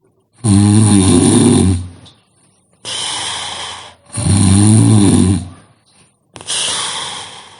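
A sleeping person snoring: two loud, low, rattling snores, each followed by a softer, airy breath, in a slow, even rhythm.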